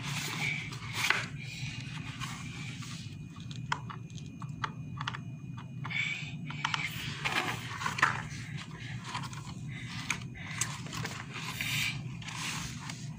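Light scrapes, rustles and scattered small clicks of a plastic toy cat being handled and knocked about by a toddler, with a run of quick ticks a few seconds in, over a low steady hum.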